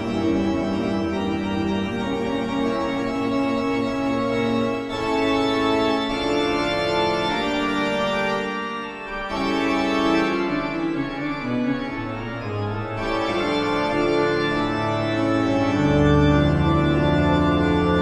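Eerie Halloween horror background music on organ: long held chords that change every few seconds, with a deep bass note coming in near the end.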